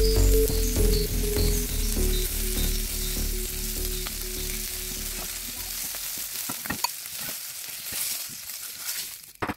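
Small whole fish sizzling in hot oil in a frying pan as a spatula turns them, with a few sharp clicks of the spatula against the pan in the second half. Background music fades out over the first half.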